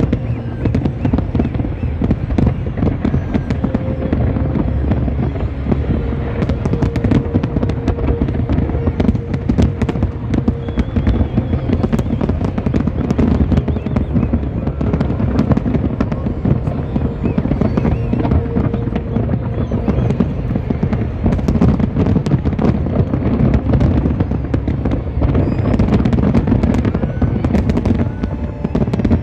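Fireworks display: a dense, unbroken barrage of shells bursting, rapid crackling over overlapping low booms.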